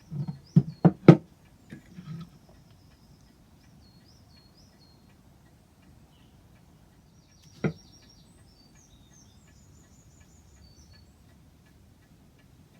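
Sharp knocks: four in quick succession near the start, a couple of softer ones just after, and a single one about halfway through. Birds chirp faintly in the background.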